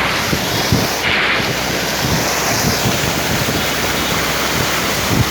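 Floodwater rushing, a steady loud wash of water noise, with wind buffeting the microphone.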